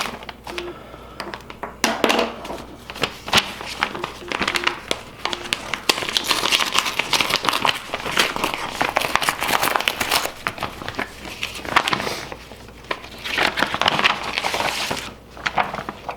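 A mail package being opened by hand: its wrapping crinkled, rustled and torn in irregular bursts.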